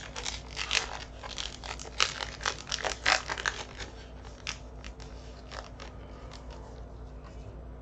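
Foil wrapper of a Pokémon booster pack being crinkled and torn open: a run of sharp crackles and rips for the first few seconds, thinning out to a few fainter rustles.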